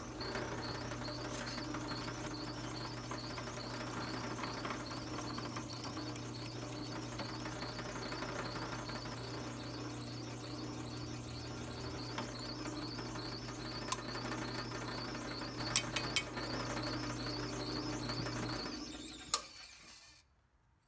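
Drill press motor running steadily with a light, even ticking while the twist bit cuts into a thin metal plate. A few sharp metal clicks come near the end, then the motor is switched off and winds down.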